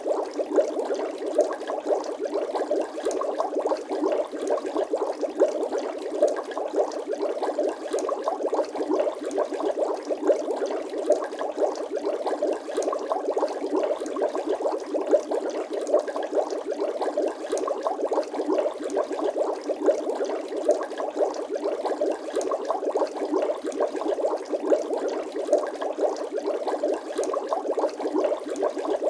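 Bubbling water sound effect: a continuous stream of small, rapid bubble pops at a steady level, with no deep bass.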